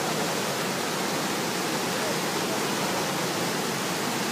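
Floodwater rushing, a steady hiss of moving water.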